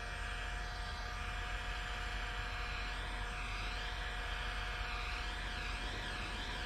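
Handheld electric heat gun running steadily, its fan blowing a hiss of hot air over a dent in a car's steel fender panel, with a steady motor hum. From about three seconds in the hiss wavers as the nozzle is moved about over the dent.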